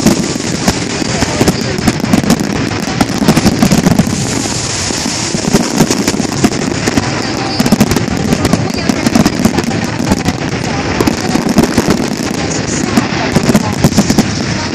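Fireworks display with many aerial shells bursting at once: a dense, continuous run of bangs and crackling.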